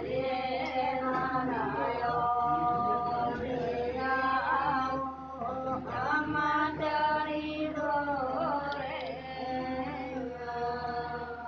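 A voice chanting mantras in long held notes that shift in pitch every second or two.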